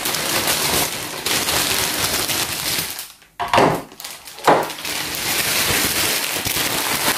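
A clear plastic bag crinkling and rustling as a plastic toy building is pulled out of it, then two sharp knocks about a second apart as the building is set down on a table, then more crinkling.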